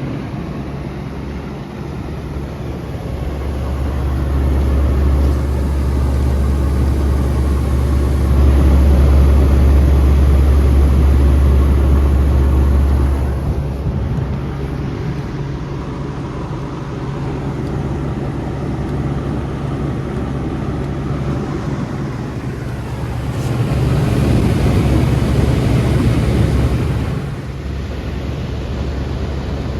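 Bard wall-mount HVAC unit running in cooling mode: a steady low compressor hum under the rush of its fan, swelling louder twice.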